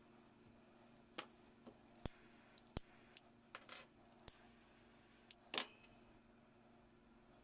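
Hard plastic toy parts clicking and knocking together as 3D-printed connector pieces are fitted onto a Multi-Bot figure: a string of sharp, irregular clicks, the loudest a little past halfway through, over a faint steady hum.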